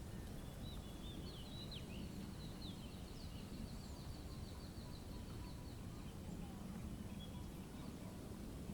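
Small birds at a feeder calling, with short chirps and a fast, high trill of repeated notes lasting a few seconds, over a steady low background rumble.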